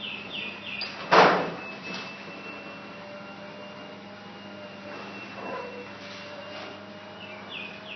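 Garage door opener motor humming steadily, with one loud short clunk about a second in.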